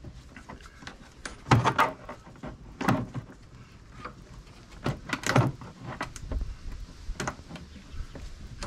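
Plastic trim on the inside of a car tailgate being pried at with a trim removal tool: several sharp plastic clicks and knocks in clusters, the loudest about one and a half and five seconds in.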